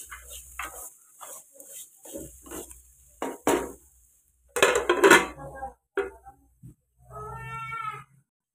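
Wooden spatula scraping and stirring green beans in an aluminium kadai in short strokes, then a louder clatter about five seconds in as the metal lid goes on the pan, followed by a couple of light knocks. A brief pitched sound comes near the end.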